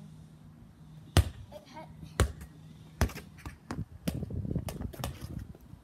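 A football thudding on concrete paving slabs. There are three loud thumps about a second apart, then a quicker run of lighter knocks and scuffs as it is kicked and played along the ground.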